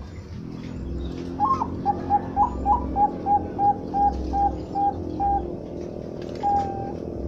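Zebra dove (perkutut bangkok) cooing: a few inflected opening notes, then a run of about ten short, evenly spaced coos, and one longer held note near the end.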